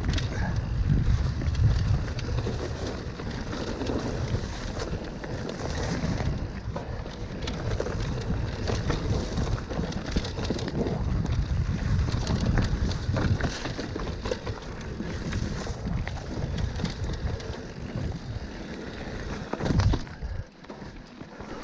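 Mountain bike ridden fast down dry dirt singletrack: wind rumbling on the microphone, tyres rolling over the dirt and the bike rattling and clicking over bumps. Near the end there is a loud thump, then it goes quieter as the bike slows.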